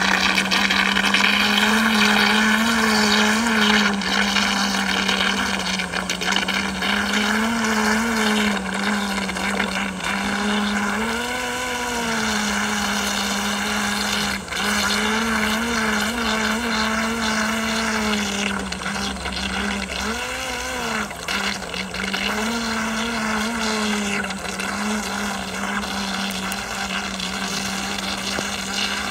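Remote-controlled fishing boat's electric motor running with a steady whine as it tows a fishing net out across the water, its pitch rising and dipping briefly several times.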